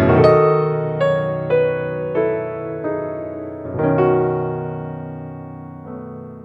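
Slow, calm piano music: single notes and a few chords, each ringing on and fading, with a chord about four seconds in and a long fade near the end.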